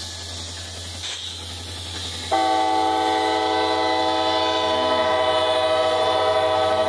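CSX diesel locomotive's air horn sounding one long, steady chord-like blast, starting a little over two seconds in, over the low drone of the passing locomotives' diesel engines.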